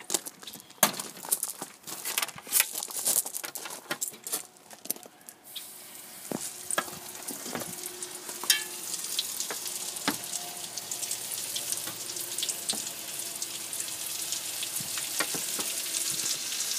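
Breaded chicken legs going into grease at about 357 degrees in a cast iron skillet. First come scattered clicks and knocks, then from about six seconds in the oil starts sizzling and grows louder as more pieces go in.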